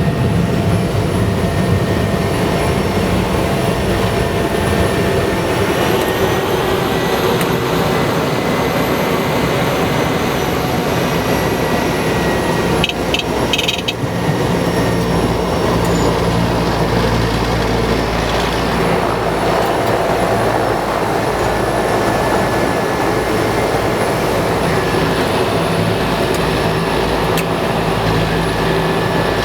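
Cessna 208B Grand Caravan's PT6A turboprop engine and propeller running steadily, a loud drone with a thin high turbine whine that rises slightly about six seconds in. A brief cluster of clicks about halfway through.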